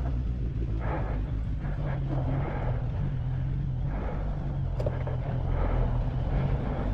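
Suzuki Bandit 1200S motorcycle's air/oil-cooled inline-four engine idling steadily at low revs.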